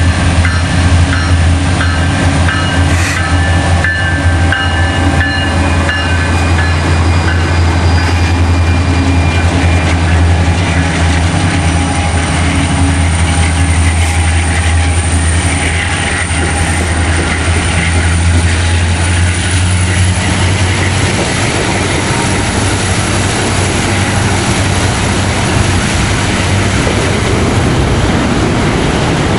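Norfolk Southern diesel locomotives passing close under power, pulling away off a siding, with a loud, steady deep engine drone. About two-thirds of the way through, the engine sound fades into the even rumble of autorack freight cars rolling by on the rails.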